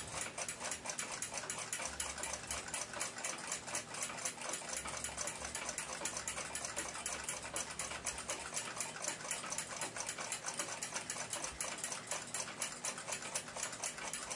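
Mechanical clock ticking steadily, an even run of quick, light ticks.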